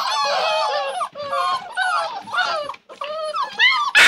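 A litter of yellow Labrador puppies whining and yipping together, many high calls overlapping, with a brief lull near the end before louder yelps.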